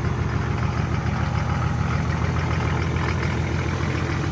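Nissan SD33-T six-cylinder turbo diesel of a 1984 Nissan Patrol idling steadily, the engine still cold from its start.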